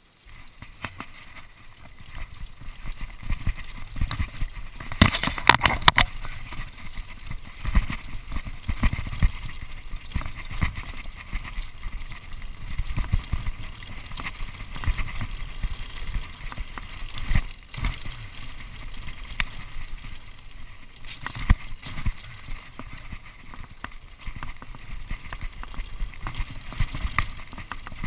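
Mountain bike riding fast downhill over a stony dirt track: tyres crunching over loose stones and the bike rattling and knocking with each bump, over wind buffeting the microphone. A louder burst of rattling comes about five seconds in.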